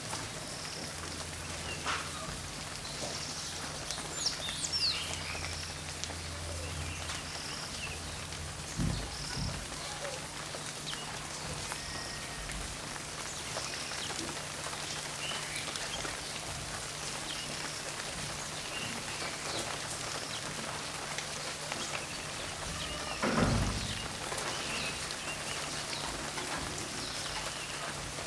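Steady rainfall with short, high animal calls repeating every second or two and a few bird chirps about four seconds in. There are two low thumps, about nine seconds in and near the end.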